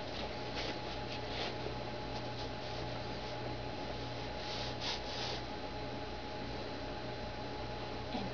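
Steady electrical hum and hiss of room tone, with a few brief soft rustles around the first second and again about five seconds in.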